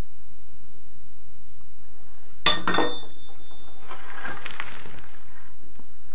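A sharp clink of hard debris being knocked among broken tile and brick rubble, ringing briefly, followed by a scraping rustle of the rubble being shifted.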